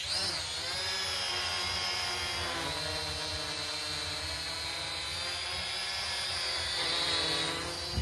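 Toy quadcopter drone's electric motors and propellers whining, with a hum beneath. The pitch wavers with the throttle, dips a little two to three seconds in, and falls near the end.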